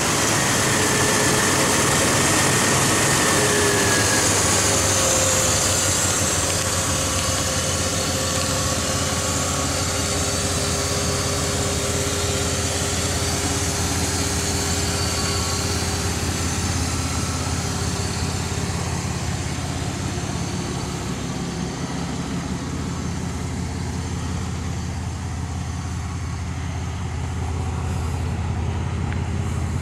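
V6 engine of a custom 1950 Dodge pickup idling steadily just after being started, with a faint whine falling in pitch in the first few seconds.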